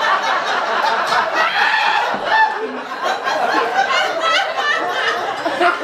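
Audience laughing: many voices at once, sustained for several seconds.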